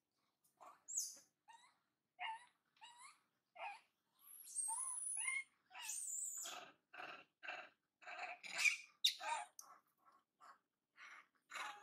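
Macaques calling: a string of short, high-pitched chirping calls, with longer squealing cries about four to six seconds in.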